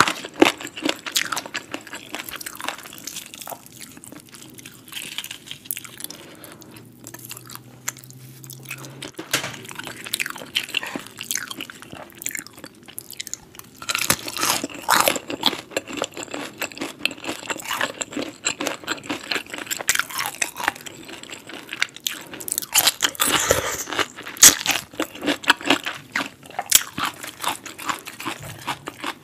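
Close-up crunching and chewing of crispy breaded fried chicken, with crackling bites of the crust. Quieter chewing for several seconds, then louder, denser crunching from about halfway.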